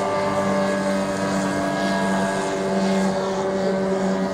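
Outboard motor of a small motorboat running at speed, a steady drone.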